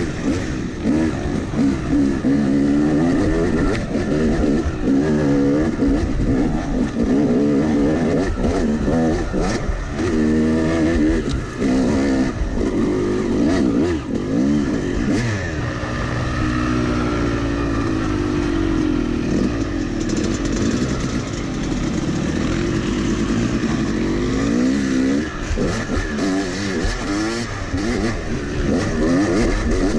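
Yamaha 250 two-stroke dirt bike engine heard from on the bike, revving up and down again and again as the rider works the throttle and gears on a trail. About halfway through the pitch holds steadier for a few seconds.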